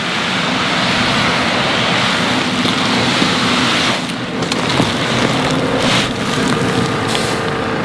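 Wheat seed pouring out of a bag into a seed drill hopper, a steady rushing hiss that thins out about four seconds in, with a tractor engine running underneath.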